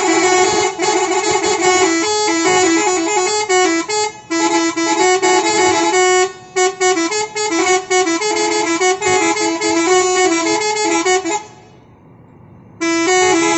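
Bus telolet horn, a Basuri-type multi-tone air horn, playing a winding melody of quick stepping notes. It breaks off for about a second near the end, then resumes.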